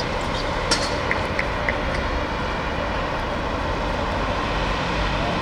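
Steady rumbling outdoor noise, with one sharp knock just under a second in and a few short high-pitched chirps after it.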